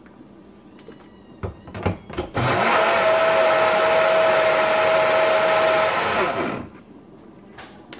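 Oster personal blender: a few clicks and knocks as the cup is set onto the base, then the motor running steadily for about four seconds while grinding, and stopping.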